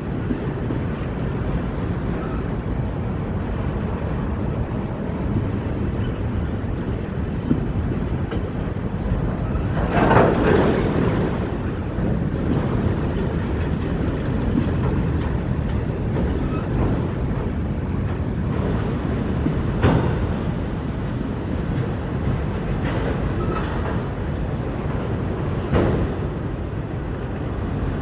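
CSX freight train cars rolling past: a steady rumble of steel wheels on the rails, with a few brief louder knocks.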